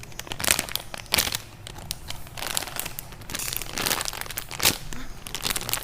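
Plastic packaging crinkling as it is handled, in short irregular crackles.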